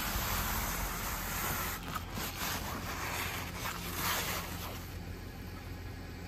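Gloved hand brushing and scooping dry, powdery snow off a car windshield, a few soft rubbing swishes over a steady low hum from the car's engine idling.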